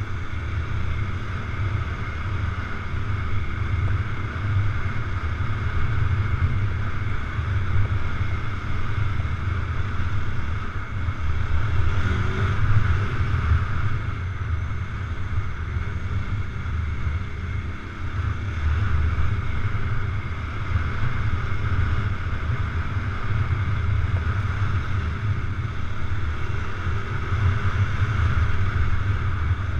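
Adventure motorcycle engine running steadily under way on a sandy dirt road, with heavy wind buffeting the microphone.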